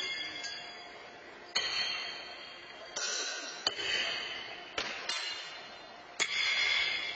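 Steel pitching horseshoes clanging against the stakes and each other on several courts: about six sharp metallic clanks at irregular intervals, each ringing out and echoing in the large hall.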